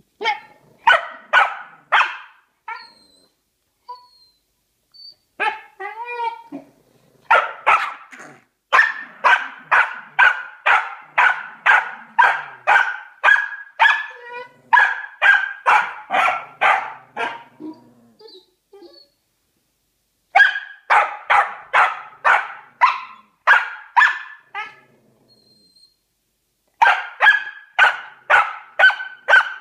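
A dog barking in long runs of short, sharp barks, about two a second, broken into several bouts by short pauses.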